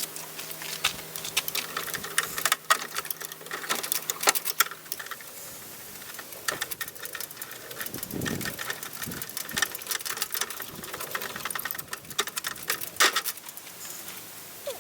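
Hand tools and loose metal parts clicking and clinking during a teardown of a gas-powered wagon, with a dull thump about eight seconds in.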